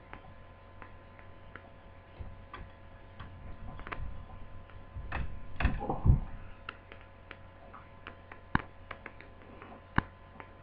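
Small clicks and taps of a screwdriver and screw as a replacement laptop screen is screwed into its frame, with a few louder knocks and handling rustles about halfway through. A steady electrical hum runs underneath.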